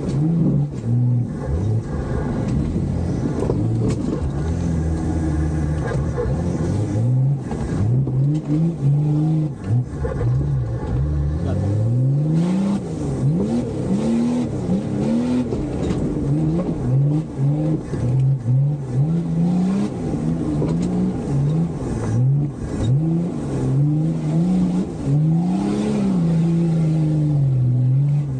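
Nissan Patrol's engine, heard from inside the cabin, revving hard again and again, its pitch surging up and dropping back every second or two as it drives through deep mud. Scattered knocks and thumps run through it.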